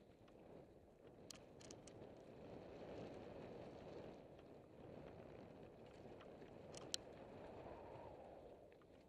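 Faint, steady rumble of a mountain bike's tyres rolling down a dirt and gravel singletrack, mixed with wind, with a few sharp clicks from stones and the bike about a second in and one louder click near the end.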